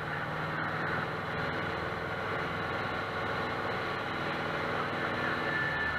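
Light single-engine piston airplane's engine running steadily, heard from inside the cockpit in flight. A steady high-pitched tone comes in near the end.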